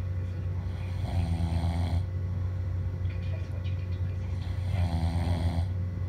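A sleeping person snoring, two snores about four seconds apart, each lasting about a second.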